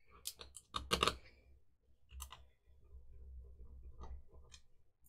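Small plastic clicks and taps as the GHD SS4 hair straightener's heater, wires and casing parts are handled and fitted back together: a quick cluster of clicks in the first second, then a few scattered ones, with a low handling rumble in between.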